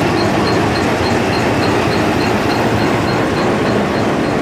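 Diesel-hauled passenger train rolling slowly past, a steady rumble of locomotive and coach wheels on the rails. A faint high tick repeats three to four times a second.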